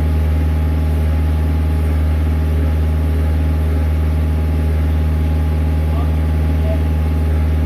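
Bobcat S150 skid-steer's diesel engine idling steadily.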